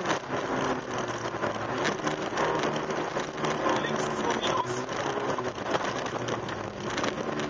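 Opel Astra GSi rally car heard from inside the cabin at speed: the engine runs at fairly steady revs under a constant rush of tyre and road noise, with a hiss and rattle of grit and ice hitting the car.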